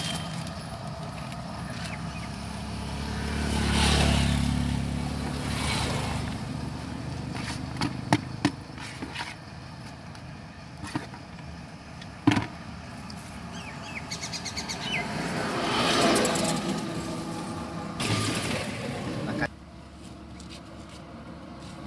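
Roadside outdoor sound: a vehicle passes about four seconds in with a low engine rumble, and another swells past around sixteen seconds. Birds chirp between them, and a few sharp knocks and clicks come in the middle.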